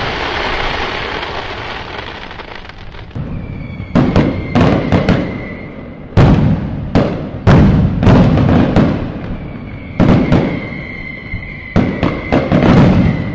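Fireworks going off: a dozen or so sharp bangs, each trailing off in a rumble, with a thin high whistle held for a couple of seconds, twice.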